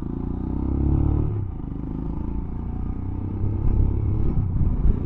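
Motorcycle engine under way, its pitch rising for about a second as it pulls, then easing off to a steadier low rumble.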